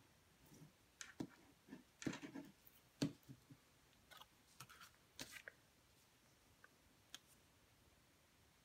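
Faint, scattered clicks and taps of card stock and a plastic liquid-glue bottle being handled and set down on a craft mat, the sharpest tap about three seconds in. After about five seconds it falls to near silence, with a single tick later.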